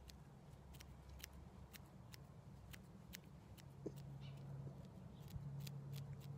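Serrated grooming scissors snipping through a cairn terrier's head and ear hair: a steady run of faint, sharp snips, about two a second.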